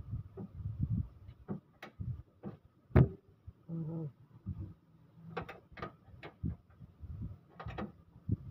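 Irregular metal clicks and knocks of hand tools working on bolts and parts at the front of an engine, with one sharp, loud click about three seconds in.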